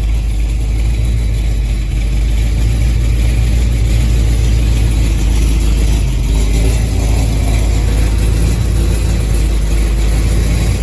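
1983 Chevy Silverado's crate engine idling through dual glass-pack exhaust, with a fast metallic rattle over the idle. The rattle comes on only once the engine is warm and gets louder the longer it runs, which the owners take to be heat-related.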